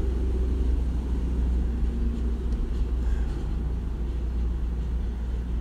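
A steady low rumble with a faint hum over it, unchanging throughout.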